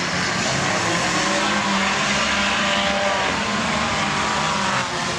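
Several small cars racing around an arena track just after the start, their engines revving at different pitches with some tyre squeal and skidding.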